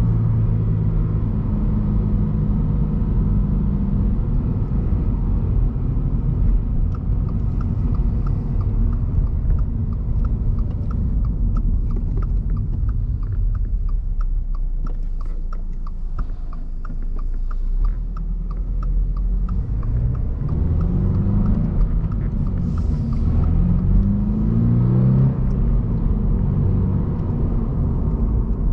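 2023 Subaru BRZ's flat-four engine heard from inside the cabin: steady cruising at first, then a quieter stretch with the regular clicking of the turn signal, then the engine revving up several times in succession as the car pulls away through the gears.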